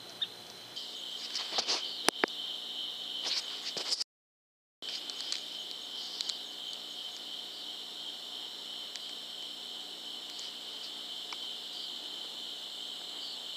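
Night insects chorusing in a steady, high-pitched trill. A few sharp clicks and rustles come in the first few seconds, then the sound cuts out for under a second before the trill resumes.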